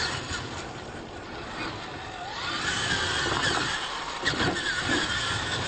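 Electric R/C monster trucks racing on dirt, their motors whining with the pitch climbing from about two seconds in as they accelerate. Sharp knocks of the trucks landing off jumps come about four and five seconds in.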